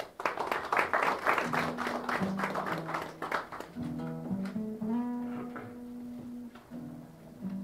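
Instrumental interlude: a guitar strummed in a quick, even rhythm for about three and a half seconds as low notes come in, then held low string notes.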